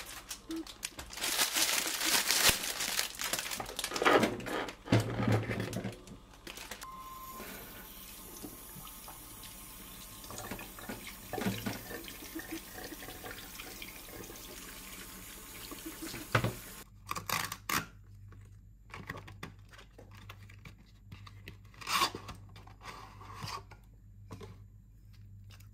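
Kitchen tap running into a stainless steel sink as food is rinsed in a mesh strainer, with splashing and light metal knocks, loudest in the first six seconds. The water shuts off about two thirds of the way in, followed by soft handling clicks and taps.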